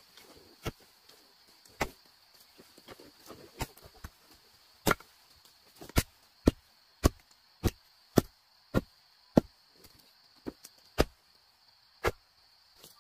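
Repeated hard chopping strikes of a hand tool, scattered at first, then a steady run of nearly two a second in the middle before spacing out again. A steady high insect drone runs underneath.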